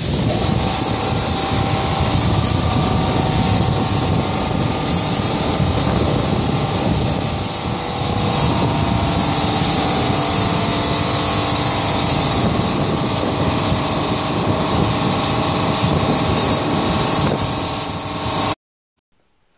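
Portal-type touchless car wash machine running as its gantry travels along a foam-covered car: a loud, steady rushing noise of machine and water with a faint whine of several steady tones. It cuts off abruptly near the end.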